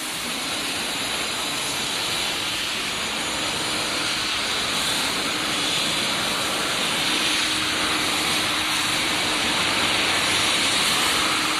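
Steady hissing din of a casting and forging workshop, with a faint low hum underneath, growing slightly louder.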